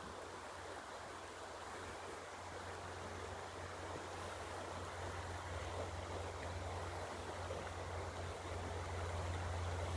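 Shallow river running over a stony bed: a steady rush of water, with a low rumble that grows louder in the second half.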